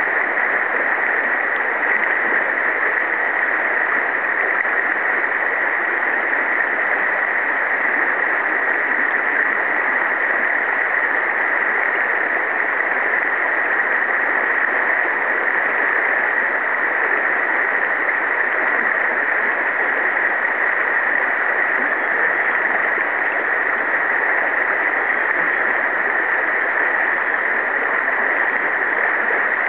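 Steady rushing of a shallow river riffle flowing past, an even hiss with no breaks or changes.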